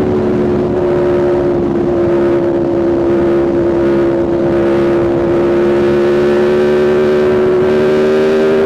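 Aprilia RSV4 V4 engine with a Spark exhaust running at a steady engine speed while ridden. The pitch holds nearly even and edges up slightly near the end.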